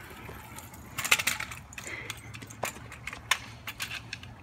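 Irregular sharp clicks and light metallic rattling, the loudest cluster about a second in, over a steady low outdoor background.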